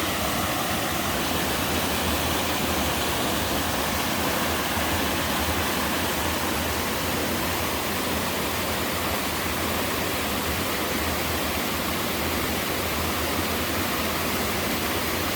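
A slide waterfall in a mountain stream, water pouring down a sloping rock slab with a steady, even rush.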